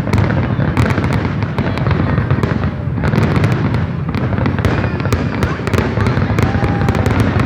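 Many fireworks going off at once: a dense stream of sharp cracks and pops over a continuous low rumble of bursts.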